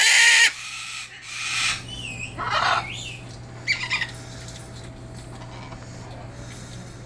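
Moluccan cockatoo calling: a loud harsh call right at the start, then three shorter calls, some with a wavering pitch, over the next four seconds.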